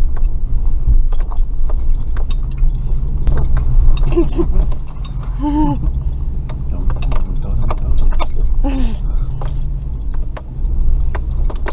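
Off-road vehicle running slowly over rough ground: a steady low engine hum with many sharp knocks, clicks and rattles from the body and suspension. A few brief voices break in around the middle.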